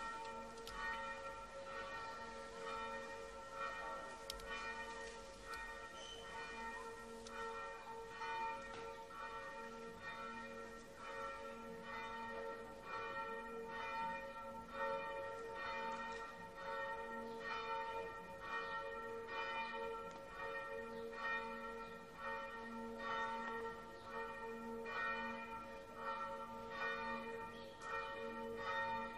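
Church bells ringing, with strokes following one another in quick succession over overlapping tones that keep sounding.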